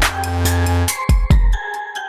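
Electronic background music with a deep synth bass, pitched synth lines and a drum beat. The bass drops out about a second and a half in.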